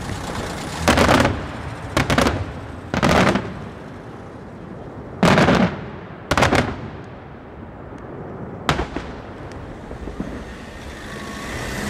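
Daytime fireworks shells bursting in the air: about six loud bangs at irregular intervals over eight or nine seconds, each dying away briefly, followed by a couple of fainter cracks.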